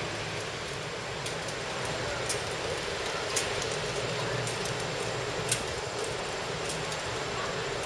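Steady outdoor rushing noise, with a few faint, sharp clicks scattered through it.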